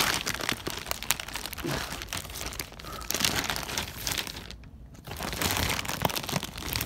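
Plastic packaging crinkling and rustling as hands handle it and pull at it, in a dense run of irregular crackles with a short lull about two-thirds of the way through.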